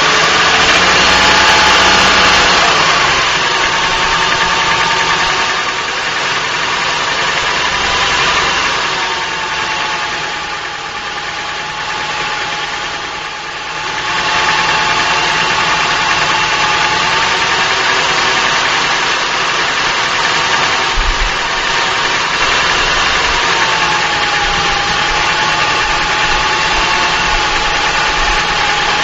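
Acura TL 3.2-litre V6 idling steadily, heard close from under the front wheel well; the idle speed dips slightly and settles twice. The owner records it for a knock after cold start, which the dealer and Acura judged normal valve-train noise.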